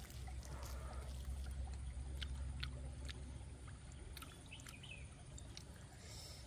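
Light clicks and scrapes of a wooden spoon lifting flaked grilled fish into a wooden mortar, over a low steady rumble that eases after about four seconds.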